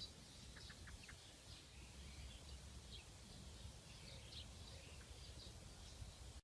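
Near silence: faint background noise with a low hum and a few faint, short, high chirps.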